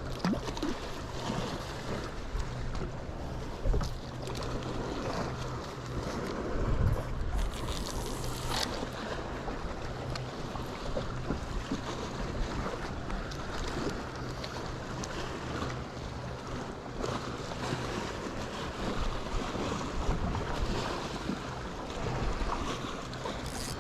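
A small fishing boat with a motor running steadily at a low hum, water noise around it and wind buffeting the microphone. There are a couple of louder low thumps about four and seven seconds in.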